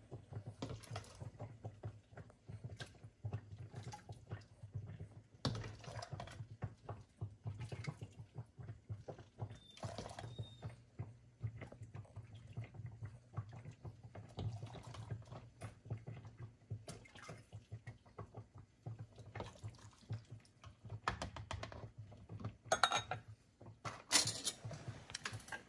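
Hot vinegar pickling brine poured through a canning funnel into a glass jar of cucumber spears, trickling and dripping with small irregular clinks. A few sharper clinks come near the end. A low steady hum runs underneath.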